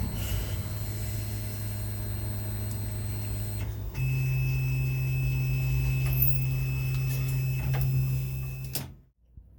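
Electric motor of a workshop machine running steadily, with a steady hum and faint high whine. About four seconds in it changes abruptly to another steady motor sound, which stops a little before the end.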